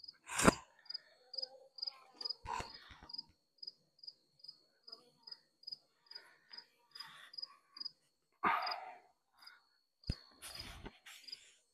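An insect chirping in a steady run of short high pulses, about three a second, over scattered knocks and scrapes of wooden hive boxes being handled. The loudest is a scraping thump about eight and a half seconds in, as the tilted upper hive box is lowered back onto the hive, followed by a sharp knock.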